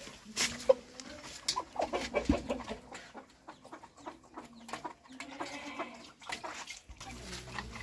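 Chickens clucking, in short irregular calls.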